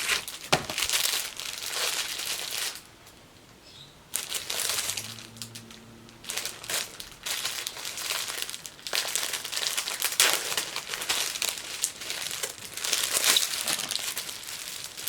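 Paper crinkling and rustling in repeated bursts as a present is unwrapped, with a couple of short pauses.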